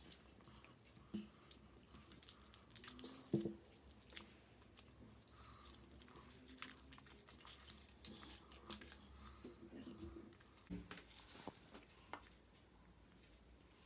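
Faint, irregular crinkling and tearing of thin aluminium foil as a Kinder Surprise chocolate egg is unwrapped by hand.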